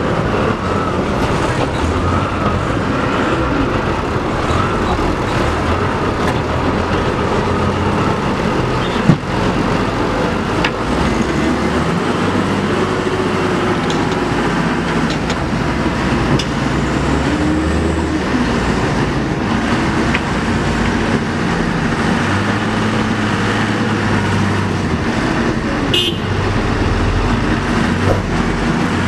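Diesel engines of a wheel loader and a mud-stuck light truck loaded with oil palm fruit, running hard under load as the loader pushes the truck through the mud, with the engine note swelling and easing now and then. A single sharp knock comes about nine seconds in.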